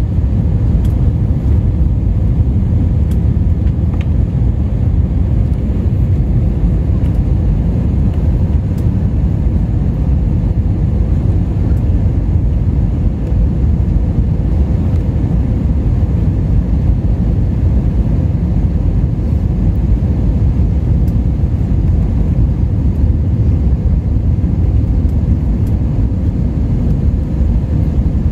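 Steady, loud low rumble of airflow and engines inside the cabin of an Airbus A320-214 on approach to land, with a few faint ticks now and then.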